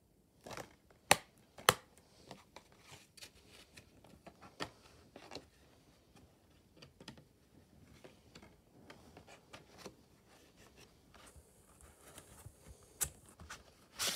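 A plastic DVD case being handled and closed: two sharp clicks about a second in, then scattered small taps and knocks, a short scraping rustle around eleven seconds, and another sharp click near the end.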